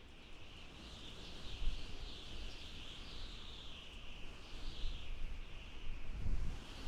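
Wind howling: a thin, high whistle that wavers slowly up and down in pitch, over a low, gusty rumble that swells near the end.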